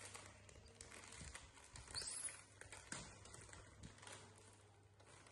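Faint crinkling and rustling of plastic snack packets being handled, with scattered light taps. A brief high squeak comes about two seconds in.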